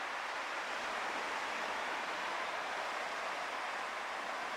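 Steady, even hiss of sea surf washing on the shore, with no distinct events.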